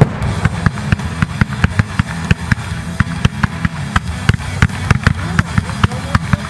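Music with a fast, steady drum beat over a heavy bass line, with fireworks going off in the mix.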